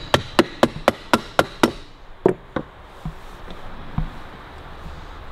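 Rubber mallet knocking on a Harley-Davidson WLA gearbox casing: a quick run of about eight blows at roughly four a second, then two more spaced out and a lighter one near the end. The casing is being tapped home over its rubber seal.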